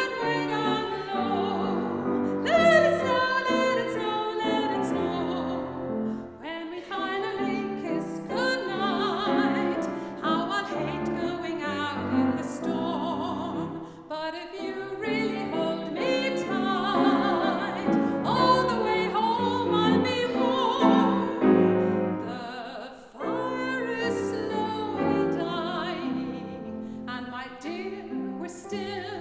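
Classically trained female voices singing a Christmas song with vibrato, accompanied by piano.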